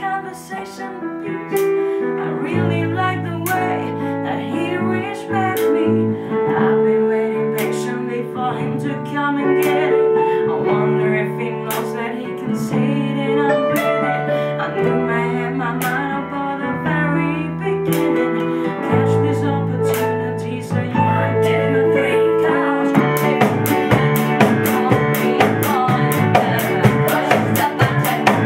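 Live band music: guitar and keyboard over sustained bass notes carrying a melody, with a fast, steady drum beat coming in near the end.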